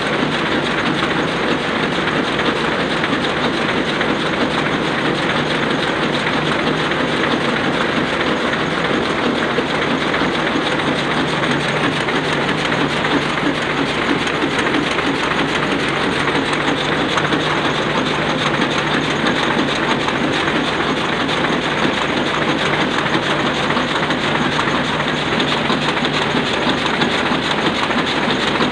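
Sakurai Oliver 66 sheet-fed offset printing press running, a steady, continuous mechanical clatter.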